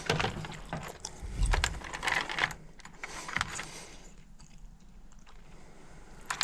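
Irregular clicks and rattles of hands rummaging through a box of electrical wire and parts, busiest in the first three and a half seconds and sparser after.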